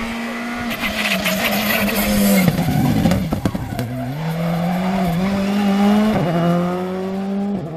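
Rally car engine at full race pace: revs drop sharply with crackling from the exhaust as it brakes for a corner about two and a half seconds in, then it accelerates hard away, revs climbing with two quick upshifts.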